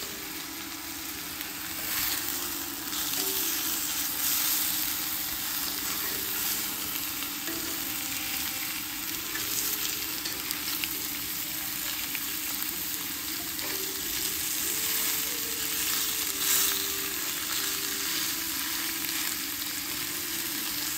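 Marinated beef steaks sizzling steadily as they pan-fry in a cast-iron skillet, with now and then the light scrape of metal tongs moving the meat.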